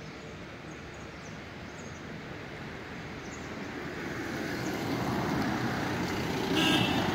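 A small hatchback car approaching around a bend, its engine and tyre noise growing steadily louder over the second half. A brief high-pitched tone sounds near the end.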